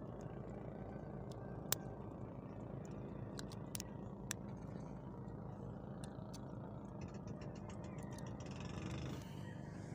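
Small boat engine idling with a steady low hum, and a few light clicks over it.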